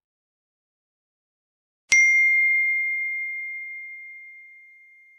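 A single bell ding sound effect, the notification-bell cue of a subscribe animation: one strike about two seconds in, ringing at one clear pitch and slowly dying away over about three seconds.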